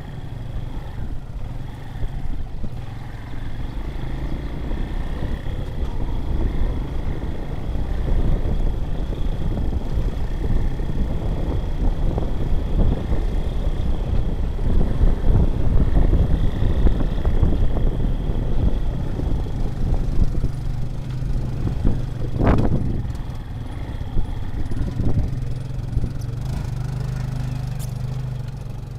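Honda SL230 dirt bike's single-cylinder four-stroke engine running under way over rough ground, with rough uneven noise through the middle of the ride. One sharp knock comes about 22 seconds in.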